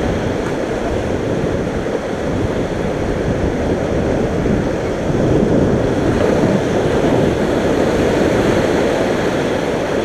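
Whitewater river rapids rushing and churning around an inflatable raft, a steady dense rush of water mixed with wind buffeting the microphone, a little louder in the second half.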